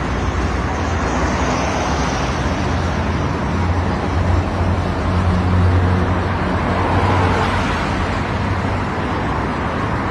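Motorboat engine running steadily, a low drone that grows louder about halfway through, with a rushing noise over it.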